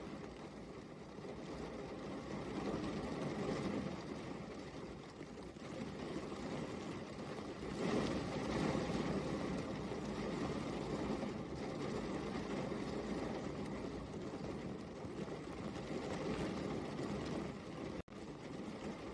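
Steady rain falling, a dense even hiss that swells and eases, with a split-second dropout near the end.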